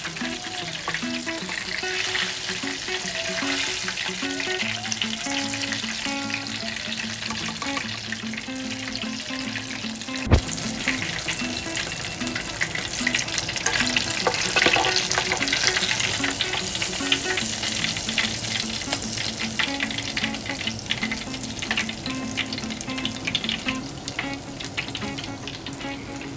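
Chicken karaage pieces deep-frying in hot oil in an electric deep fryer, a steady dense crackling sizzle, with a wire mesh skimmer moving through the oil. A single sharp knock about ten seconds in.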